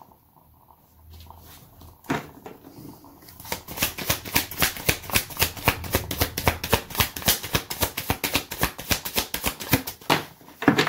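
A tarot deck being shuffled by hand: a rapid run of card clicks and riffling begins a few seconds in, with a louder knock near the end.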